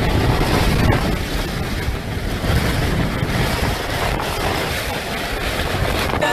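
Hurricane-force wind with driving rain, blowing hard and steadily, with heavy wind buffeting on the microphone.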